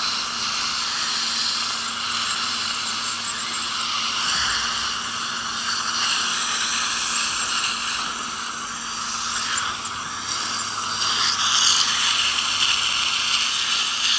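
Dental scaling with an ultrasonic scaler and suction running: a steady hiss of suction and water spray, with a steady low hum underneath.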